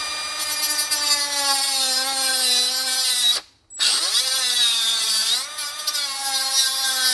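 Compact cordless cut-off tool whining at speed as its small disc cuts through the headlight housing's plastic adjuster rod, the pitch sagging as the disc bites. It stops abruptly a little over three seconds in, then spins back up and keeps cutting.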